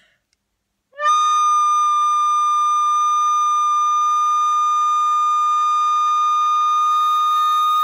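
A recorder holding one long, steady high note, starting about a second in and unchanging throughout.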